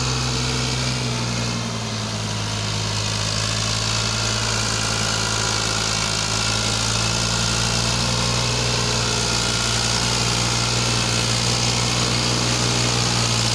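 Al Ghazi 65 hp tractor's diesel engine running steadily under load while pulling a heavily loaded trailer; the engine note dips slightly about two seconds in.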